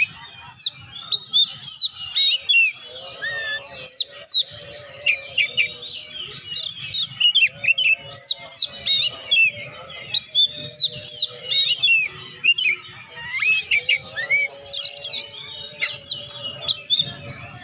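Oriental magpie-robin (kacer) singing vigorously: a fast, unbroken run of loud, varied short whistles, sweeps and chirps.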